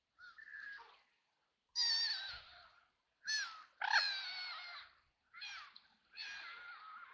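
White ducks quacking: a run of about six harsh, separate calls, the loudest and longest near the middle.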